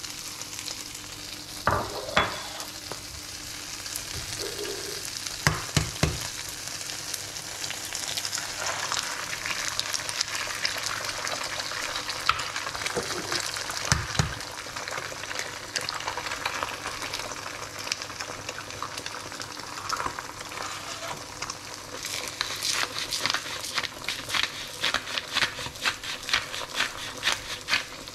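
Grated mozzarella and eggs sizzling steadily in a nonstick frying pan, with a few sharp knocks from egg shells and a spatula against the pan and bowl. Near the end, a rapid run of clicks from a pepper grinder being twisted over the pan.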